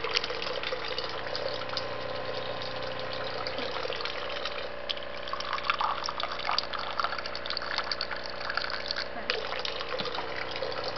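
Water ionizer dispensing water: a steady stream running into a container, with a steady machine hum under it and small splashes and clicks.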